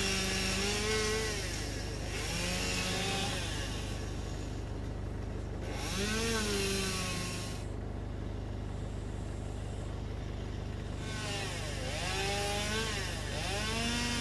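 Chainsaw revving up in about five bursts, its pitch rising and falling as it cuts through a fallen tree, with a steady low idle in between.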